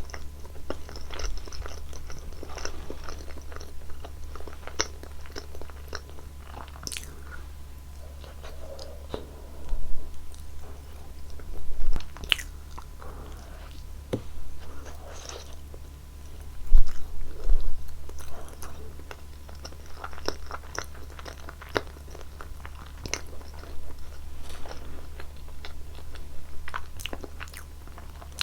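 Close-miked chewing and biting of roasted pumpkin sweet potato, a run of small clicks and mouth sounds with a few louder moments spread through, over a steady low hum.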